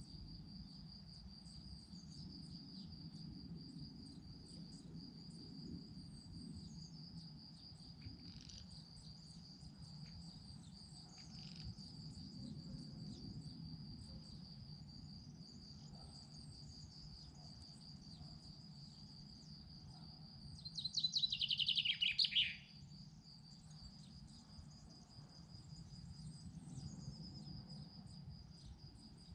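A steady, high insect trill runs throughout with faint bird chirps over it. About two-thirds of the way through, a bird gives a loud, fast trill that drops in pitch over about a second and a half. A low, steady background hum lies underneath.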